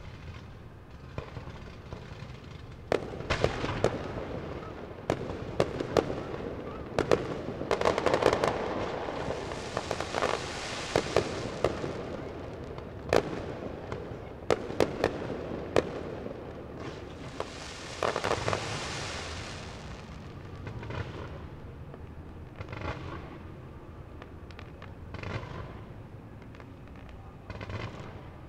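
Aerial fireworks shells bursting in a fast series of sharp bangs, densest in the first half, with two long stretches of hiss from the bursts and fewer, quieter bangs near the end.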